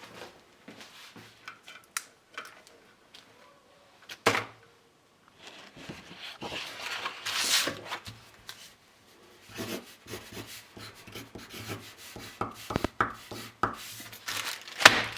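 Handling noises: scattered clicks and knocks, one sharp knock about four seconds in, and a rustling, tearing stretch around the middle.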